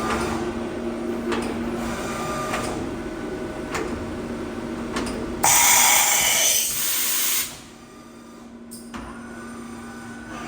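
Hermle U 630 T CNC vertical machining centre running: a steady machine hum and whine with sharp clicks every second or so. Midway a loud hissing rush lasts about two seconds and cuts off suddenly, leaving a quieter hum.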